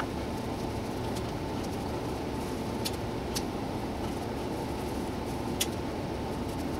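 Laguna Revo 1836 wood lathe running steadily while a cloth charged with abrasive paste is held against the spinning pine box to polish it. Three short light ticks come through in the middle.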